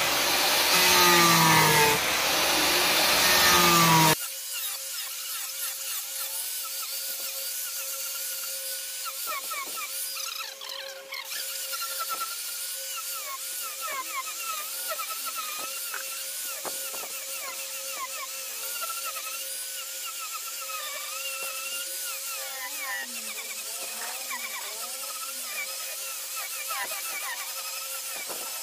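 Hand-held electric angle grinder with a sanding disc sanding carved hardwood, its motor whine rising and falling as the disc is pressed and eased. About four seconds in the sound drops suddenly to a quieter, thinner whine that carries on steadily.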